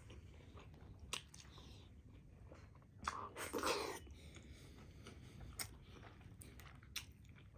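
Close-up mouth sounds of eating steamed buff momo dumplings: quiet chewing with scattered short wet clicks and smacks, and a louder stretch of noisy chewing about three seconds in.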